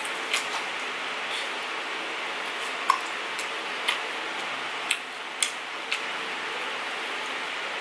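Scattered light clicks and taps, about one a second and uneven, from handling a barbecue skewer and plastic-wrapped food while eating. They sit over a steady background hiss.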